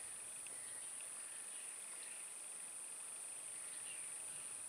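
A steady, high-pitched insect chorus drones without a break, with faint short chirps now and then.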